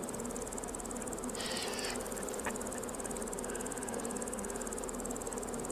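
A swarm of insects buzzing, a steady, unbroken drone with a fast flutter.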